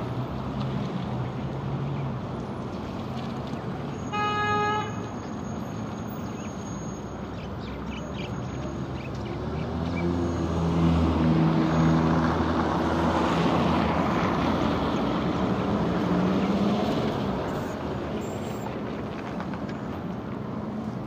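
Road traffic at a city intersection: engines running and vehicles passing, with one short car horn toot about four seconds in. From about ten seconds a vehicle engine grows louder for several seconds, its pitch rising near the end as it pulls away.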